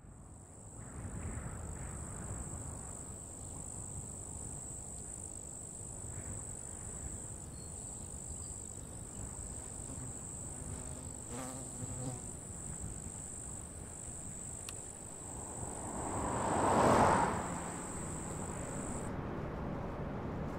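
Crickets trilling steadily on one high note over a low rumble. About sixteen seconds in, a rush of noise swells and fades over two seconds, and near the end the crickets cut off suddenly.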